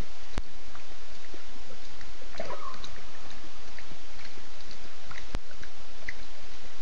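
Night bush ambience at a waterhole: a steady even hiss with scattered short insect- or frog-like chirps and one brief call about two and a half seconds in. Two sharp clicks, one near the start and one about five seconds in, are glitches in the stream's audio.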